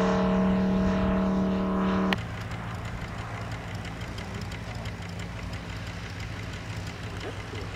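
Model aircraft engine running steadily at a high, even pitch, then dropping suddenly to a quieter, lower running about two seconds in.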